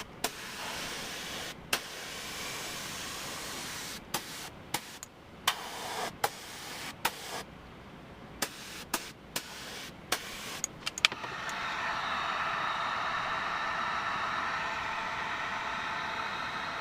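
Air hissing in short stretches broken by sharp clicks, then, about eleven seconds in, a steady, louder rush of blowing air, as from an air dryer drying a fresh coat of texture on a steering wheel.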